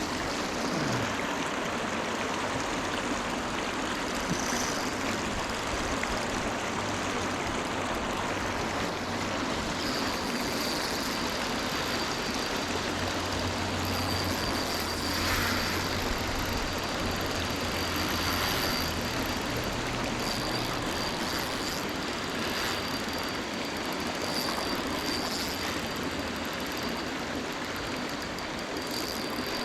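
Steady rush of river water flowing. A low engine hum rises under it from about a third of the way in and fades out past the middle.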